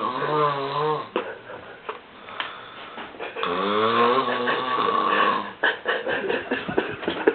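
A drunk man snoring heavily in his sleep: two long snores, the first fading out about a second in and the second from about three and a half to five and a half seconds, followed by a run of short, choppy snorts near the end.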